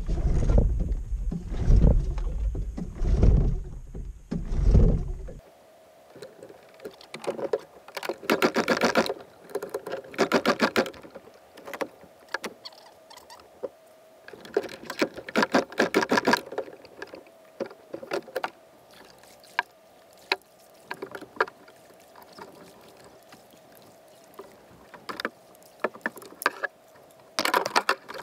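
Small outboard motor being pull-started: a series of separate rope pulls, each a short burst of the engine turning over quickly, with pauses between them.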